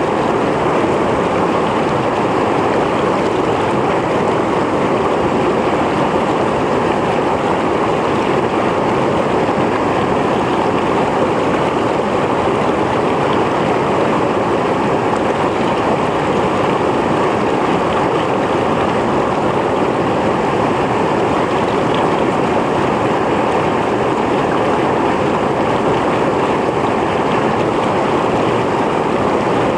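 Mountain stream flowing over rocks: a steady, unbroken rush of water.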